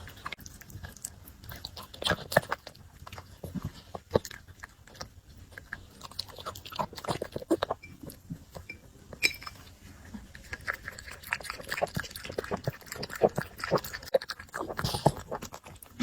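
A puppy eating pork rib soup close to the microphone: a run of irregular short chewing and mouth clicks.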